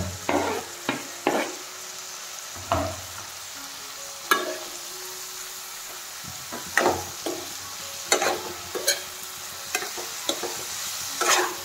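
Steel spoon scraping and knocking against a steel kadai in irregular strokes while onion and tomato are stirred into hot oil, over a steady sizzle of frying.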